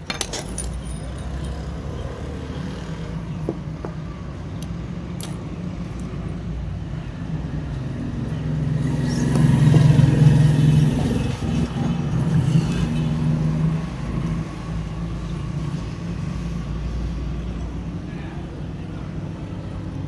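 Steady low rumble like road traffic, growing louder for a few seconds around the middle as if a motor vehicle passes close by.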